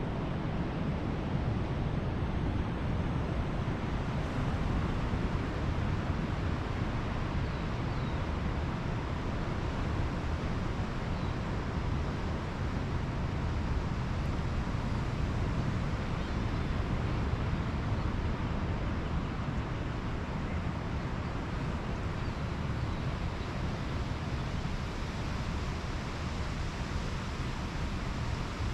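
Ocean surf washing on a beach: a continuous, fairly steady rush with no single wave standing out.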